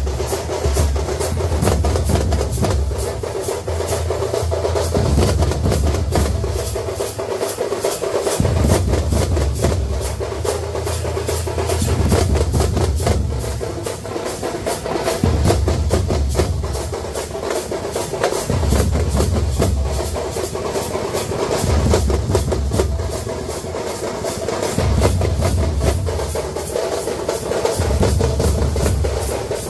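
Temple-festival drumming: fast, continuous rolling drum strokes, with a deep bass beat that comes and goes every few seconds.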